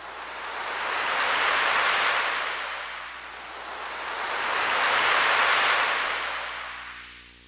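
Synthesized surf sound effect from a Roland SC-55 sound module: a wash of noise that swells up and dies away twice, like two waves breaking.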